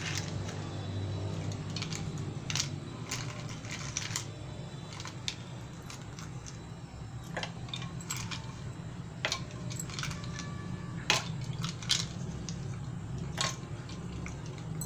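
Ice cubes dropped one by one into two glasses of orange drink, clinking against the glass with small splashes: a dozen or so sharp clinks at uneven intervals.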